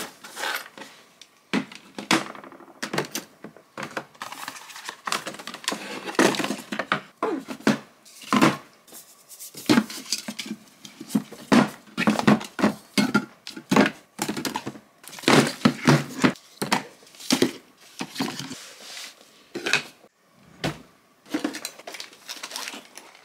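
Jewelry, earrings and rings, clattering and clinking as it is picked through and sorted by hand, in a long run of small irregular clicks.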